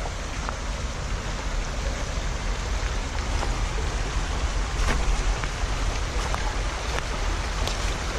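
Steady rushing of a brook running high, with a few faint clicks scattered through it.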